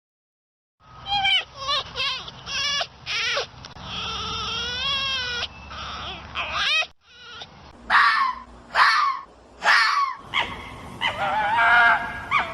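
An animal calling repeatedly, starting about a second in: a run of short high calls, one long wavering bleat-like call, then more short calls and a quick string near the end.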